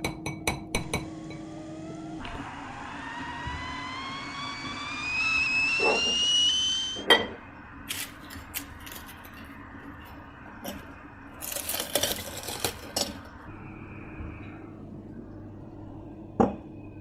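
Crockery clinking, then liquid poured into a cup or glass, its pitch rising steadily for about five seconds as it fills. More clinks follow, a quick cluster of them past the middle, and one knock near the end.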